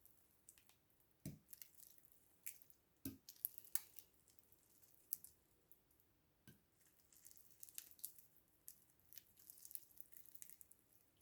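Wet, sticky slime being worked by hand or stirred: irregular squishy clicks and crackles, with three soft thumps.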